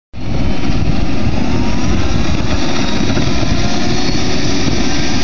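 Heavy wind buffeting on the microphone, with a faint whine underneath that rises slowly in pitch: a scale RC helicopter's engine being spun up by its starter, ahead of ignition.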